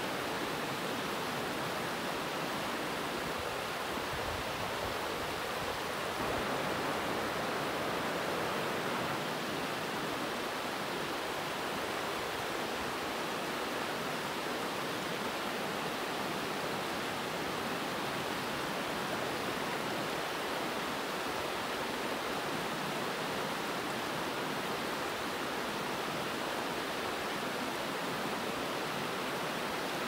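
Shallow, rocky mountain river running over rapids: a steady, even rush of water.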